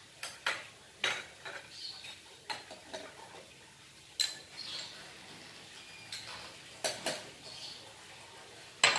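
A metal spoon clinking and scraping against a small glass bowl while an ingredient is scooped out, in a string of short, irregularly spaced clinks.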